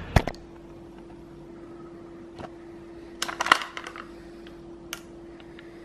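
Crockery clinking and clattering briefly around the middle, with a few single clicks, over a steady low hum; a sharp knock comes just after the start.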